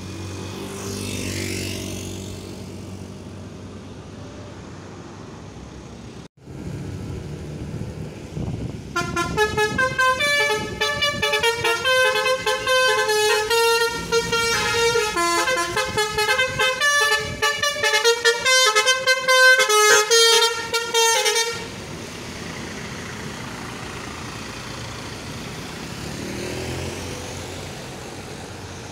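Basuri telolet horn, a multi-tone musical vehicle horn, playing a quick melody of stepping notes for about twelve seconds, starting about nine seconds in. Before and after it, vehicles pass with engine and road noise.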